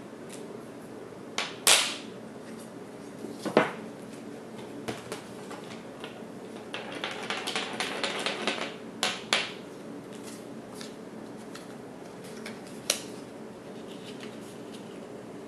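Strips of 35mm film being handled at a table: a few sharp clicks and snaps, with a stretch of crinkling about halfway through, over a steady low hum.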